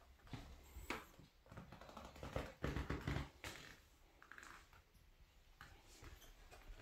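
Faint footsteps and handling noise from a handheld camera as someone walks through a small house: scattered soft knocks and rustles, a little louder about two to three and a half seconds in.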